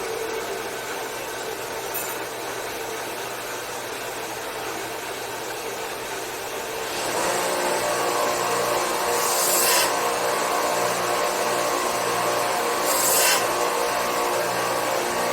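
Electric belt sander running steadily, then a steel block pressed against the belt about seven seconds in, giving a louder rasping grind with brief hissing surges, as a little metal is taken off to square up the sawn block.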